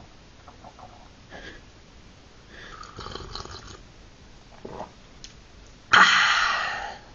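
A man sipping and slurping tea from a china cup, with soft mouth and breath noises. About six seconds in comes a loud, breathy open-mouthed "aah" that lasts about a second and fades away.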